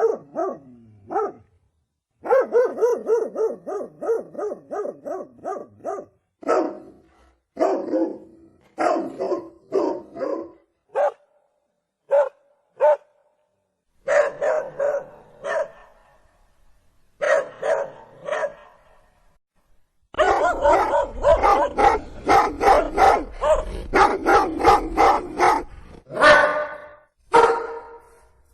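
German Shepherd barking repeatedly. A fast run of barks comes a couple of seconds in, then single barks and short groups with silent gaps, and a long dense run of barking starts about two-thirds of the way through.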